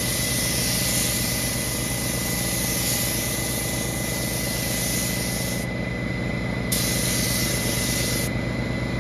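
Motor-driven power sprayer running steadily, its spray hissing over the motor hum. The hiss stops briefly twice while the motor keeps going, as when the spray trigger is let go.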